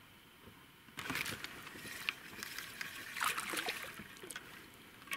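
A hooked small fish, a chebak (Siberian roach), splashing at the water surface as it is reeled in, in irregular bursts that start about a second in.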